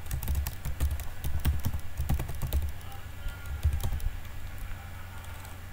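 Typing on a computer keyboard: a quick run of keystrokes that thins out to a few scattered taps after about three and a half seconds.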